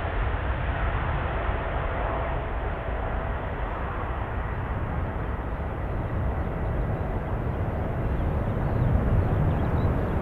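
Jet airliner engines heard from the ground: a steady rumble with a faint whine in the first few seconds, the low rumble growing louder near the end.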